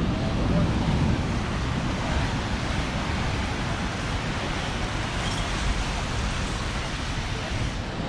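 Ocean surf washing onto a sandy beach, a steady rush of noise, with wind buffeting the microphone and faint voices of people around.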